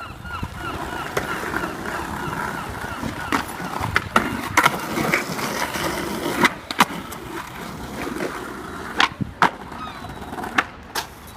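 Skateboard wheels rolling on hard ground, broken by sharp clacks of the board hitting the ground, about ten in all, several coming in quick pairs about a third of a second apart.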